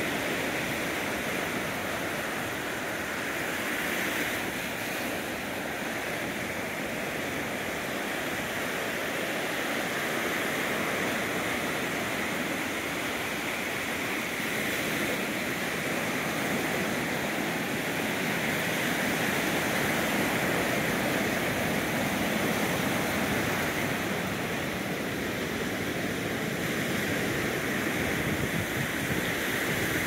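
Ocean surf washing on the beach: a steady rushing noise that swells a little in the second half.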